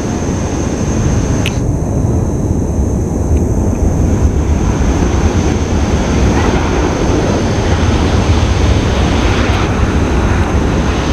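Lion Air twin-engine widebody jet airliner rolling down the runway just after landing, its engines giving a loud, steady low rumble, with wind buffeting the microphone.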